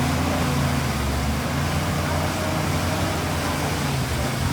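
Diesel engine of heavy earthmoving machinery running steadily, a low even drone under a wash of wide mechanical noise.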